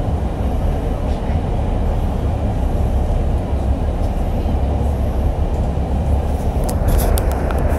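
Chicago 'L' subway train running through a tunnel, heard from inside the front car: a steady, deep rumble of wheels on rail and traction gear, with a few sharp clicks near the end.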